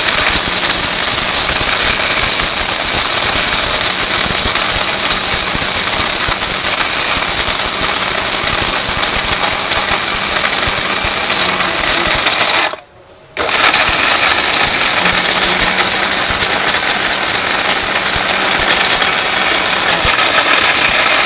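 Jaipan 1100-watt mixer grinder running flat out, its samurai blades grinding dried turmeric into fine powder in a stainless-steel jar. It makes a loud, steady whir, stops for a moment about 13 seconds in, runs again, and stops near the end.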